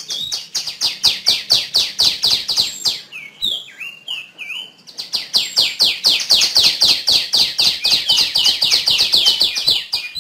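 Female tiểu my songbird calling: fast runs of short, high, down-slurred chirps, about six or seven a second. About three seconds in the runs give way to a few slower looping notes, and after about five seconds the fast chirping resumes.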